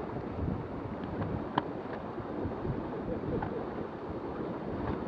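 Water rushing and foaming along the hull of a Dehler 37 sailing yacht moving at about seven to eight knots, with wind buffeting the microphone. A single sharp click about one and a half seconds in.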